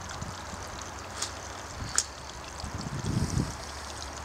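Footsteps crunching on dry leaves and twigs, a few sharp steps under a second apart, over a steady rush of running flood water. A brief gust of wind hits the microphone about three seconds in.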